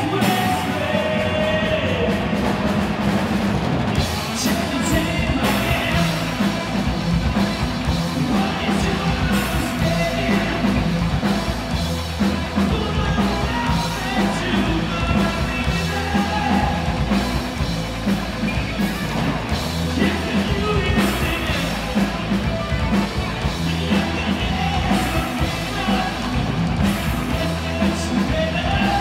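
Live rock band playing with electric guitars and a drum kit, loud and continuous, with a steady drum beat.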